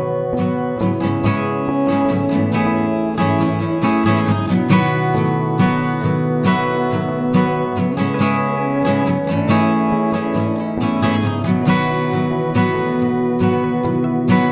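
Background music: an acoustic guitar strumming at a steady pace.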